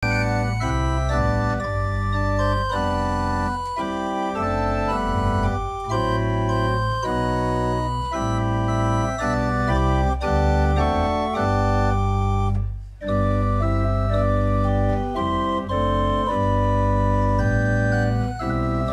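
Small pipe organ playing slow sustained chords, with a short break about two-thirds of the way through before the music resumes.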